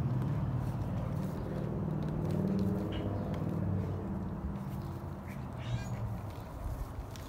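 Large dog's long, low growling while it tugs at a garden hose, fading out after about four seconds.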